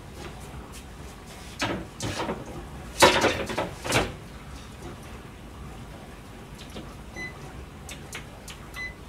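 Metal grill rack and tray being slid into a stovetop fish grill drawer, with a cluster of clattering metal knocks over about two seconds. Near the end comes a run of short, high electronic beeps, about two to three a second.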